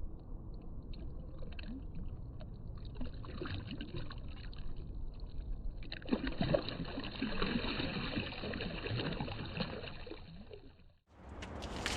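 River water splashing and gurgling with scattered knocks, typical of a fish being handled at the water's edge, cutting off abruptly near the end.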